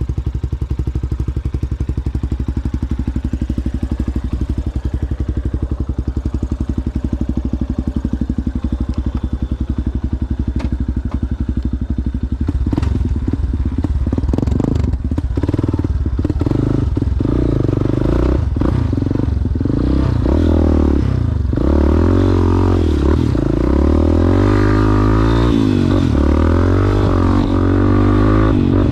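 Yamaha Ténéré motorcycle with an aftermarket Coyote exhaust, running steadily at low revs. About twelve seconds in it opens up and gets louder, the engine note rising and falling through throttle changes and gear shifts. Scattered clattering knocks come through as it rides over rough ground.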